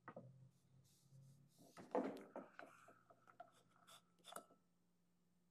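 Faint handling of a seat wrench and adjustable wrench unscrewing the removable seat of a weight-operated dump valve: a soft scrape about two seconds in, then a few light clicks, over a faint low hum.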